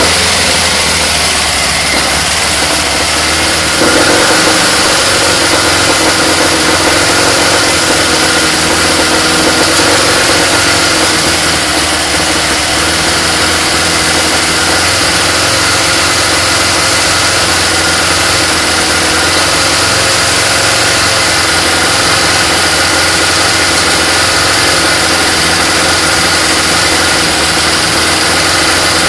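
Freshly rebuilt Jowett Javelin flat-four engine running steadily, soon after its first start since the rebuild. Its note shifts slightly about four seconds in.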